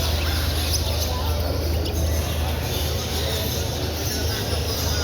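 Busy bird-show hall ambience: a crowd's background chatter mixed with caged birds chirping, over a steady low hum.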